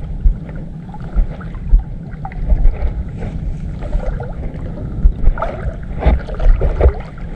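Water sloshing with irregular low thumps and a steady rumble, with some wind on the microphone.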